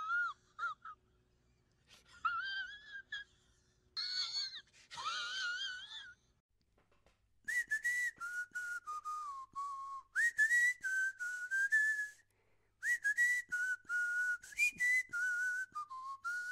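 A person whistling in short wavering phrases, then, from about seven and a half seconds in, a whistled melody of held notes moving up and down over a regular clicking beat.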